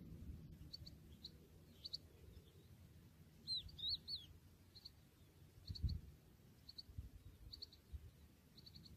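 European goldfinch calls: short, high chirps in twos and threes about once a second, with a louder run of twittering, curved notes about three and a half seconds in. Faint low rumbles of wind on the microphone lie underneath.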